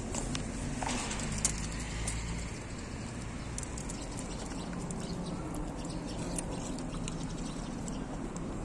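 Dog eating chunks of pork from a stainless steel bowl: steady chewing and smacking with many small clicks of teeth and muzzle against the bowl.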